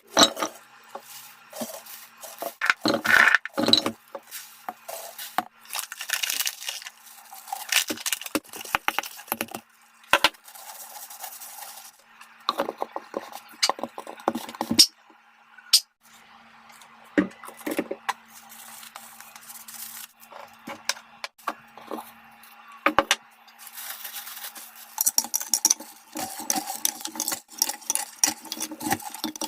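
Irregular clinks, knocks and rattles of kitchenware being handled, coming in uneven clusters with short pauses between them. A faint steady hum runs under parts of it.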